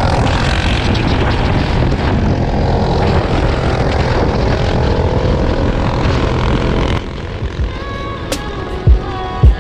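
Off-road vehicle engine running loudly. About seven seconds in it drops away and music with heavy bass thumps comes in.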